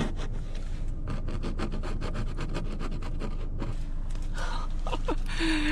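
Frost and ice being scraped off a car's window glass: a quick run of short scraping strokes that stops about three and a half seconds in.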